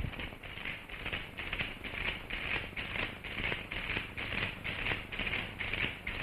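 Many children's feet marching in step on a dirt road, a steady rhythm of about two steps a second that starts suddenly.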